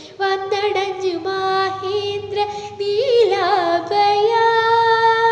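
A young woman singing a Malayalam Hindu devotional song to the Devi in a Carnatic-style melody, with wavering, ornamented phrases. She holds one long note near the end.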